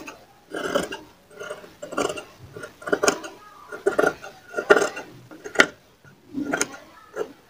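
Large tailor's scissors snipping through fabric and its stiff interfacing as the seam allowance is trimmed: a series of short cuts with blade clicks, roughly one a second.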